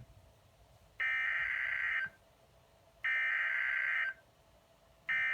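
NOAA Weather Radio SAME digital header, a harsh warbling data screech sent in three bursts of about a second each, a second apart; the third starts near the end. Heard through a weather radio's speaker, it is the coded header that opens a new alert broadcast.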